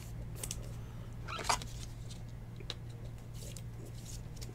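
Faint handling of trading cards and plastic card sleeves: a few brief soft scrapes and a short rising squeak about a second and a half in, over a steady low electrical hum.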